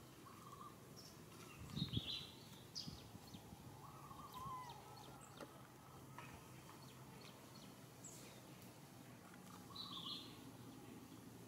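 Faint forest ambience with scattered short, high bird chirps. A brief low thump with a rustle about two seconds in is the loudest sound.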